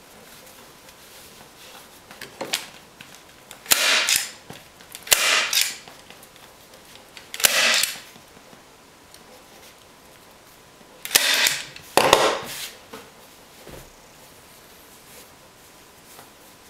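Hand staple gun driving staples through upholstery fabric into a seat base: about six loud, sharp snaps, spaced unevenly a second or more apart, each with a short noisy tail.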